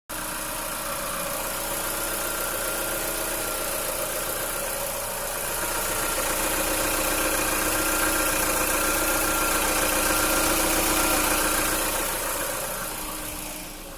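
Car engine idling steadily, its note growing somewhat louder about five seconds in and settling back near the end. It is running quietly with little vibration after a fix done from forum advice.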